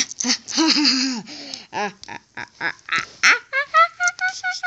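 A voice laughing and making gliding vocal noises, ending in a quick run of about six short, even 'ha' notes, with a few small knocks among them.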